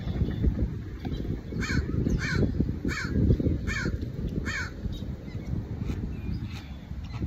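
A bird calling five times in a row, each call falling in pitch, about 0.7 seconds apart, over steady wind rumbling on the microphone.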